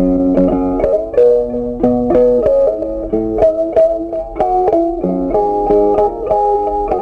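Background music: a plucked-string melody, note after note at several notes a second.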